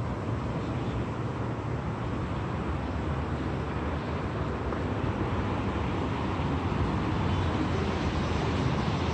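Steady low-pitched outdoor background noise, a continuous hum without distinct events, growing a little louder over the last few seconds as the balcony is reached.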